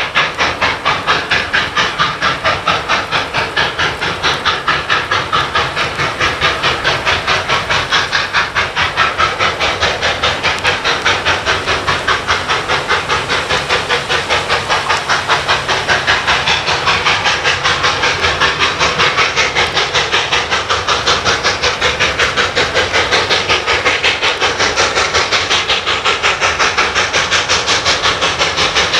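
Norfolk & Western 611, a Class J 4-8-4 steam locomotive, working hard as it pulls a passenger train away from a stop: a quick, even beat of exhaust chuffs with steam hissing.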